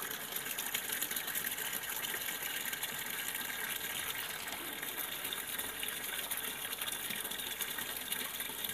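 Water gushing steadily from a Sanyo top-loading washing machine's inlet into the tub and splashing onto the water already in it. The machine is still filling at its lowest water-level setting with the tub nearly full: it is not cutting off the water or starting to wash.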